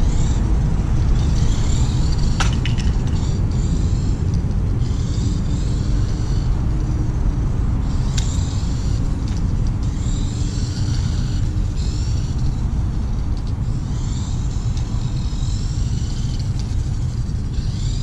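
Small electric motor and gears of a Tamiya Dual Rider RC trike whining in repeated bursts, the pitch rising and falling as it speeds up and slows around the course. Under it is a loud, steady low rumble.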